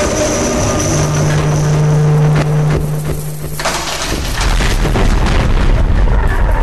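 Experimental noise track: a dense wash of distorted noise, with a steady low hum from about a second in to about four seconds, after which a deep low rumble takes over.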